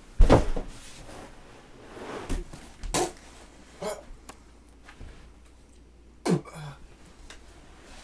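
A few irregular dull thuds and knocks, the loudest right at the start and another a little past six seconds, with faint scuffling between them.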